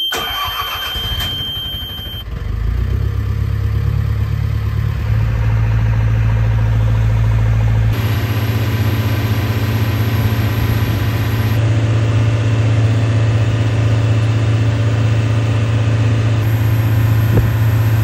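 Small fishing boat's engine started with the key: a steady high beep sounds while it cranks, the engine catches about two seconds in, and it then runs steadily as the boat gets under way.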